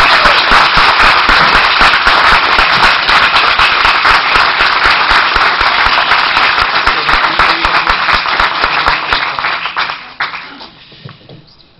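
Audience applauding, loud and dense, dying away about ten seconds in.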